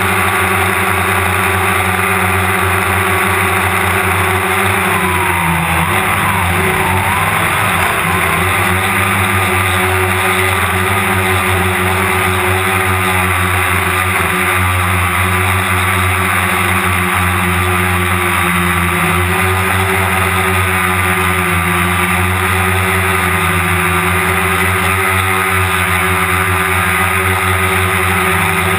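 DJI Phantom quadcopter's electric motors and propellers whining steadily, heard close up from the camera mounted on the airframe. About five seconds in, the pitch wavers for a few seconds as the motors change speed, then settles again.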